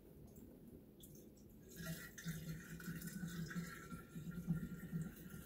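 Water poured from a plastic bottle into a PVC pipe tank, starting about two seconds in and running on as a faint, gurgling stream.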